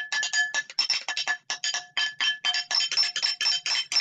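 A plate being struck over and over: a rapid run of clinks, several a second, each ringing with the same bright tones.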